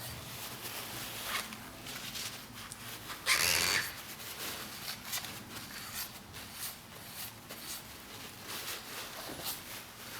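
Scattered small clicks, taps and rubbing of hands and tools on a projector being restored, with one louder rushing burst of about half a second roughly three seconds in.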